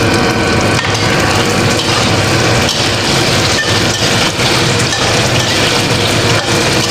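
Tofu slices frying in hot oil in a steel wok, sizzling and crackling steadily as they crisp, with a metal spatula now and then knocking and scraping against the wok as the pieces are turned.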